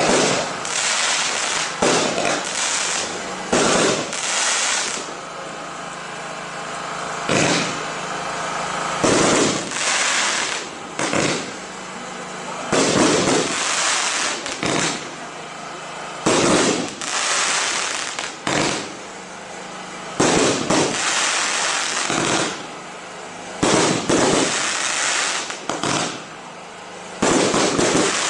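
Ardi Showbox Fascination pre-fused firework cake firing in a rapid run of shots, with a sharp loud burst about every one to two seconds and crackle filling the gaps between them.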